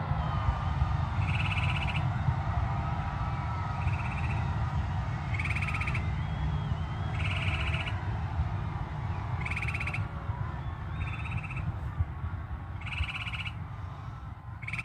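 An animal call repeated every one to two seconds: a short trill of rapid pulses, under a second each, over a steady low rumble, with fainter wavering calls between the trills.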